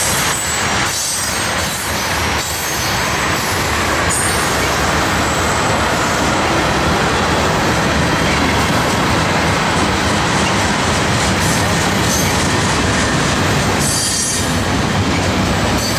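Freight train of refrigerated boxcars and double-stack container well cars passing close by, a steady loud rumble and rattle of steel wheels on rail. Brief high wheel squeals come about four seconds in and again near the end.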